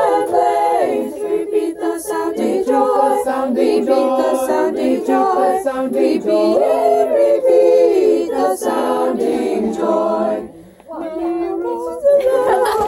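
A small group of carolers singing a Christmas carol a cappella, with a brief break about ten and a half seconds in before the singing starts again.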